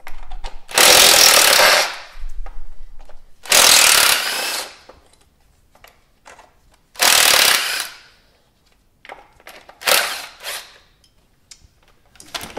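Electric impact wrench with a 10 mm socket hammering in four short bursts of about a second each, spinning out the four bolts that hold the ignition coil pack to the engine, with faint clicks between bursts.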